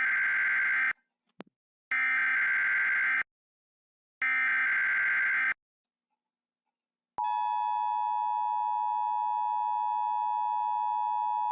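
Emergency Alert System SAME header: three screeching bursts of digital data tones, each a little over a second long with short gaps between them. After a pause of about a second and a half, the steady EAS attention tone starts about seven seconds in and holds.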